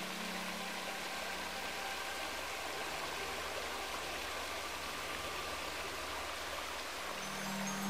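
Waterfall on the Sary-Uzen river: water falling and splashing in a steady, even rush.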